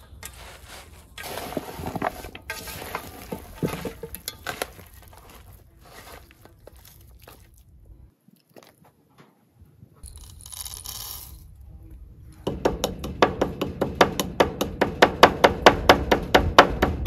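Hands mixing raw lamb pieces and sliced onion in an aluminium bowl, with wet squelches and light knocks against the metal. After a short pause, a wooden pestle pounds spice in a wooden mortar: fast, even knocks about five a second, the loudest part.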